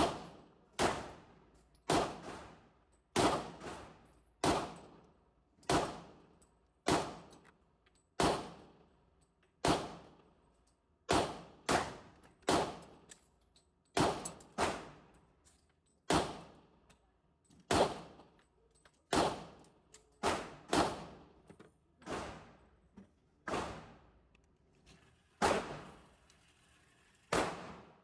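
SIG P226 pistol firing single shots at a steady pace, about one shot a second with a few quicker doubles, each shot followed by a short echoing tail.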